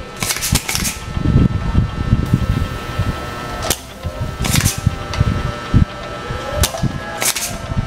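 Spring-loaded desoldering pump snapping as its plunger is released, several sharp snaps spread over a few seconds, with dull knocks of the tool against the amplifier's board and chassis in between. This is solder being sucked off the pins of the master volume potentiometer to take it out for testing.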